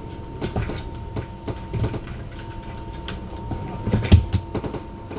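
Irregular rustling, clicks and soft thumps of hands and cats moving about, loudest a little after four seconds, over a faint steady hum.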